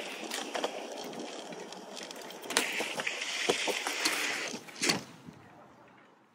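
BMX bike ridden on concrete: tyres rolling with a hiss, and a few sharp knocks of the bike hitting the ground on landings, clear ones about two and a half seconds in and near five seconds. The sound fades away near the end.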